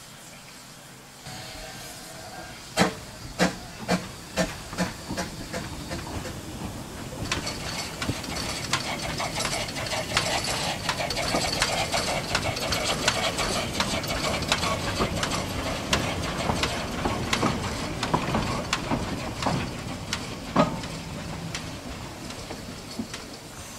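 Narrow-gauge GWR 2-6-2 side-tank steam locomotive No. 8 Llywelyn getting under way: a few sharp exhaust beats about two a second, fading. Then a steady steam hiss with quick chuffing as it runs past, and a single sharp knock near the end.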